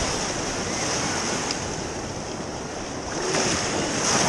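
Shallow surf washing and foaming around the legs of someone wading, with a wave surging in louder near the end.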